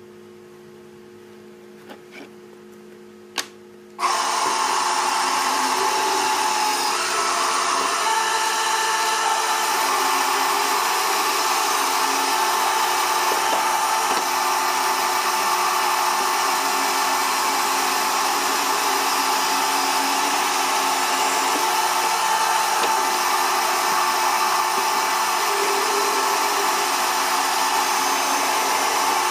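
Band saw switched on with a click about four seconds in, then running steadily with a constant whine as wood is pushed to the blade.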